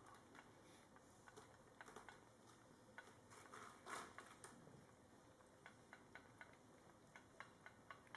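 Faint, irregular wet clicks and ticks of a cat and kitten lapping and eating from a saucer, a few a second, with a small cluster about four seconds in.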